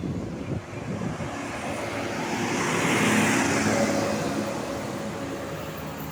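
A road vehicle driving past, its engine and tyre noise growing louder to a peak about three seconds in and then fading away.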